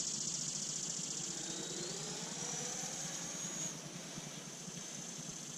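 Twin 64 mm electric ducted fans of a Freewing F-14 Tomcat RC jet whining in flight over a steady high hiss. The whine rises in pitch about a second and a half in, holds, then drops away about two-thirds of the way through.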